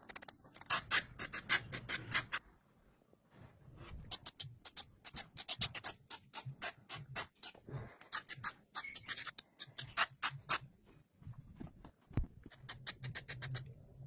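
A small scraper tool scratching quick, repeated strokes over snow-sprayed window glass, in runs of several strokes a second with short pauses between runs.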